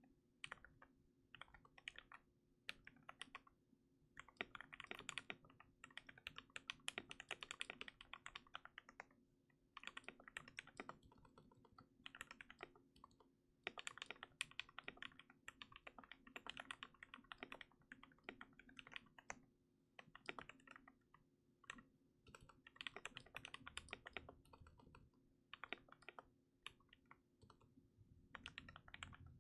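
Typing on a KBD67 MKII custom mechanical keyboard with lubed and filmed Gateron Yellow linear switches, a brass plate and a silicone-dampened case. Keystrokes come in quick runs of several seconds, broken by short pauses.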